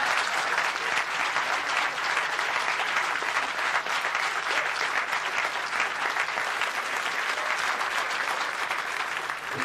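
Theatre audience applauding, a dense, steady clapping that eases slightly near the end.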